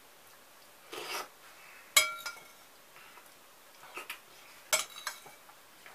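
Metal spoon clinking against a ceramic soup plate and tableware: one sharp, ringing clink about two seconds in, then several lighter knocks around four to five seconds. A short slurp of soup comes about a second in.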